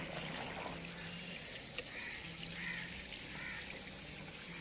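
Water trickling steadily from a pipe into a concrete trough.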